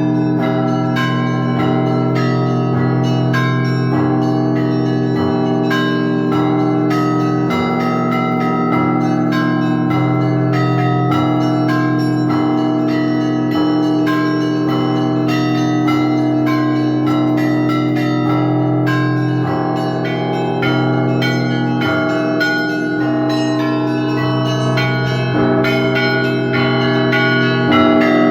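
The bells of the Spaso-Euthymius Monastery belfry rung by one bell-ringer in the Russian Orthodox style: quick, repeated chiming of small bells over the steady hum of the larger bells, with no break.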